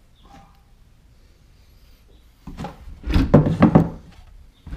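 Handling knocks and rubbing as the camera is set down and settled on a wooden (OSB) workbench. The sounds are faint at first, then a loud cluster of thumps comes about two and a half to four seconds in.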